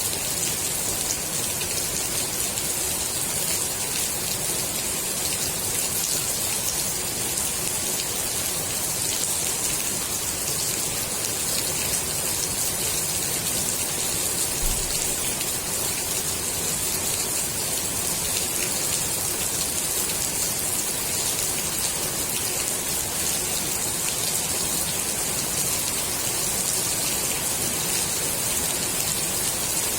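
Steady rain falling on the water of a swimming pool, a dense, even patter of drops.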